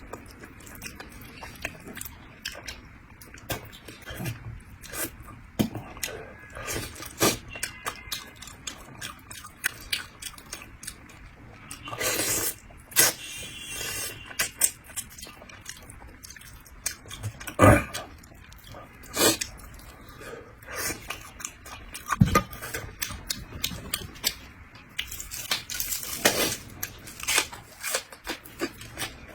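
Close-up eating sounds of a person chewing and sucking meat off a bighead carp head: many wet smacks and clicks, with a longer slurp about twelve seconds in.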